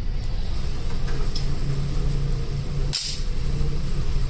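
Target carrier motor humming as it runs the paper target downrange, over the steady rumble of an indoor range, with one sharp click about three seconds in.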